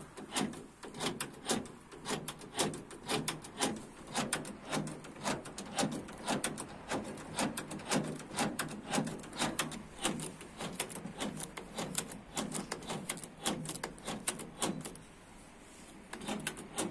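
Rapid series of sharp mechanical clicks from a VW Transporter T4 door lock mechanism being worked over and over, about three a second, pausing briefly near the end before a few more.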